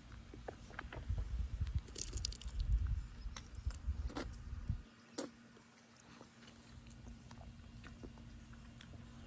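A person chewing a large, soft strawberry gummy candy: wet, sticky mouth clicks and smacks, over a low rumbling noise that stops about five seconds in. After that only scattered faint clicks remain.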